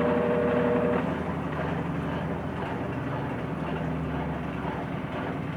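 Consul Facilite 9 kg washing machine running, most likely in its spin cycle. A steady whine cuts off about a second in, leaving a slightly quieter rushing hum from the turning drum.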